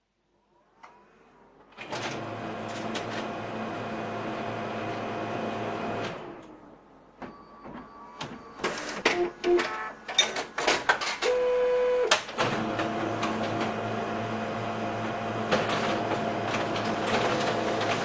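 Old laser printer at work. Its motor and fan start about two seconds in and run steadily with a hum, then stop about six seconds in. A stretch of clicks, clacks and short whining tones follows, and the printer runs steadily again from about twelve seconds in.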